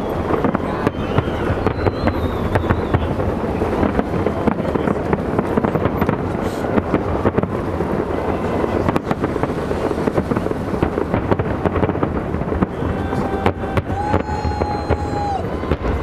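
A continuous fireworks barrage: many aerial shells bursting in quick succession, a dense crackling and booming that never lets up. A held high tone sounds near the end.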